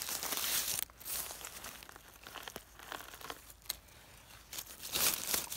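Dry fallen leaves and pine needles crackling and rustling close up as a hand clears the litter around a mushroom's stem and grips it. It is loudest in the first second and again near the end, with lighter crackles between.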